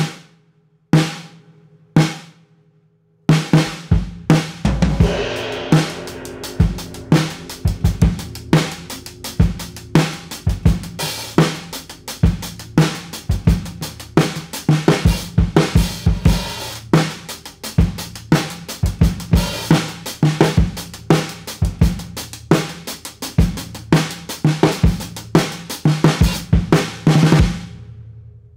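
3D-printed snare drum, damped with a microphone bag laid on the head and with loose snare-wire tension, played with sticks. Three single strokes come about a second apart, then a steady drum-kit groove with bass drum and cymbals starts about three seconds in and stops shortly before the end.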